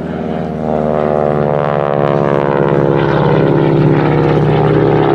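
A North American Harvard's Pratt & Whitney R-1340 Wasp nine-cylinder radial engine and propeller on a display pass. It grows louder about a second in, then its pitch falls as it goes by.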